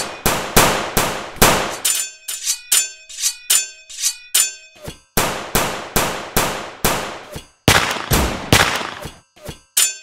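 Dubbed-in fight sound effects: a rapid string of sharp metallic clangs with ringing tails, like sword strikes, about two to three a second, a few of them longer and ringing out.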